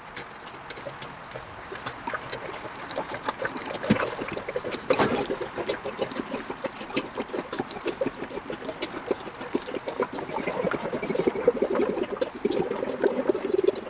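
Used engine oil being poured into a funnel packed with cotton and filter wool, gurgling and splashing unevenly. The pour gets louder and fuller about four seconds in.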